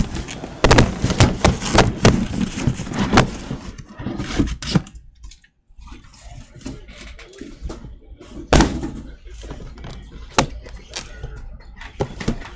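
A cardboard shipping case and the cellophane-wrapped blaster boxes of trading cards inside it being handled: a run of scraping and rustling, then separate thumps as boxes are set down. The loudest thump comes about two-thirds of the way in.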